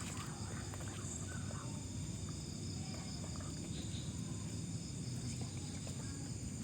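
Outdoor insect chorus: several steady, unbroken high-pitched trills, over a low rumble.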